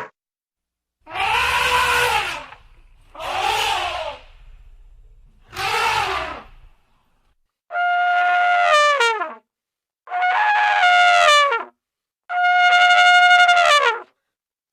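Elephant calls: three rough, arching cries with a low rumble beneath, then three longer, clear trumpet blasts, each holding a steady pitch and dropping away at the end.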